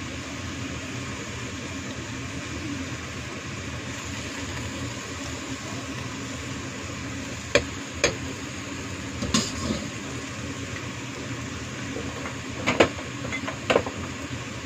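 A metal spoon clinking and knocking against a cooking pot as choy sum and beef are stirred, a few sharp clinks in small clusters starting about halfway through, over a steady hiss from the cooking.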